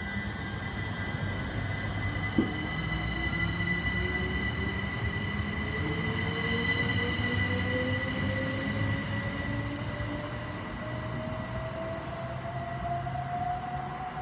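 Greater Anglia electric multiple unit pulling away, its motor whine rising slowly in pitch as it gathers speed, over a steady high whine and a low rumble. A sharp click comes about two and a half seconds in.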